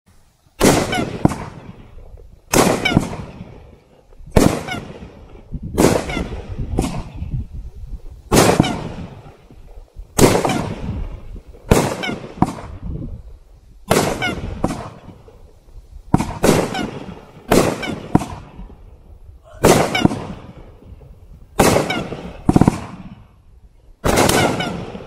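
Aqua Thunder 16-shot, 500-gram fireworks cake firing shot after shot: a sharp bang about every one and a half to two seconds, some of them doubled, each followed by a fading rumble.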